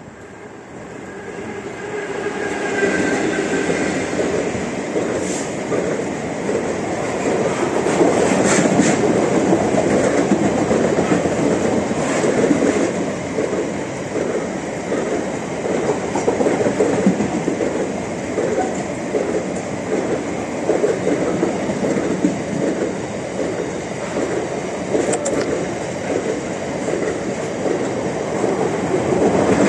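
A diesel-hauled freight train passing close by, growing louder over the first few seconds as the locomotive comes past. It is followed by a long rake of covered car-carrier wagons rolling by with a steady rhythmic clickety-clack of wheels over rail joints, with an occasional sharper click.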